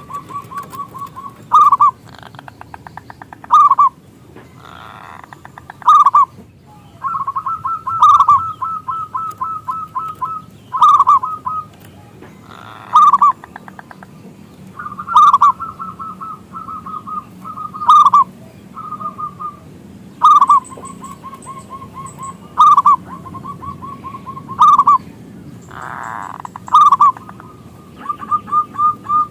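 Zebra dove (perkutut) singing: repeated phrases of rapid, short staccato notes that end in louder cooing notes, every two seconds or so.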